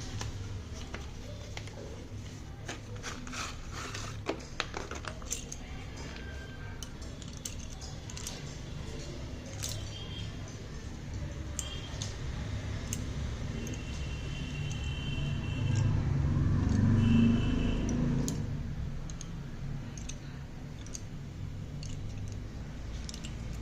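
Packaging being handled and opened by hand: scattered clicks, taps and crinkles, with a louder low rumble for a couple of seconds about two-thirds of the way through.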